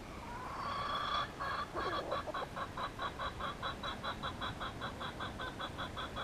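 Red junglefowl rooster calling: one drawn-out note that rises at the start, then a fast, even run of clucks, about five a second.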